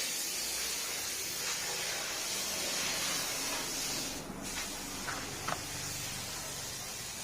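A steady hiss, with a brief dip about four seconds in.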